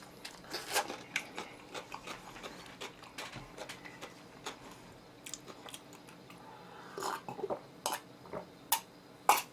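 Close-miked chewing and biting of oven-roasted chicken, with scattered wet smacks and crunchy clicks. The sharpest click comes near the end.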